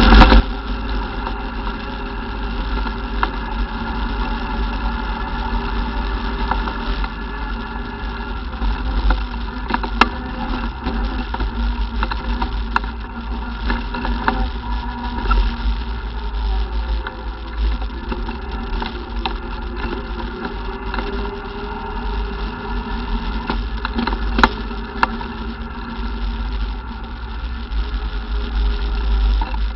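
ATV engine running at a fairly even pitch under a heavy low rumble, with a few sharp knocks along the way.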